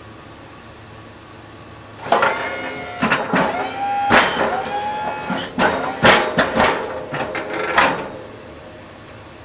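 Fisher Minute Mount snowplow's electric-hydraulic pump running in several short bursts as the blade is angled and swung back, each whine rising in pitch as it starts, with sharp clicks between bursts.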